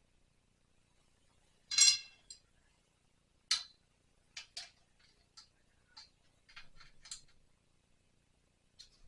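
Parts of a clothes drying rack clinking and clicking as it is flipped over and handled: a loud clink that rings briefly a little under two seconds in, another sharp one about three and a half seconds in, then a run of lighter clicks and taps.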